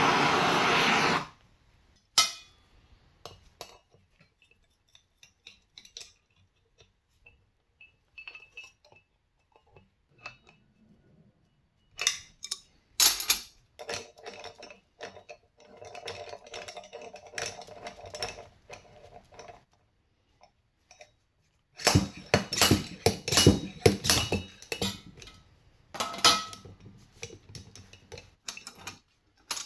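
A blowtorch hisses for about a second and then shuts off. Scattered metal clinks and taps follow as a slide-hammer bearing puller is fitted into the heated aluminium hub of a 2006 Honda CRF250R wheel. About three quarters of the way through comes a quick run of sharp metallic knocks as the slide hammer is worked to drive the wheel bearing out.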